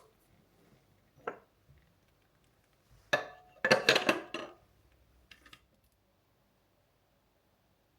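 Crockery and cutlery clinking while a cup of tea is made: a single clink about a second in, a quick run of clinks and knocks around three to four seconds, and a couple of light ones after that.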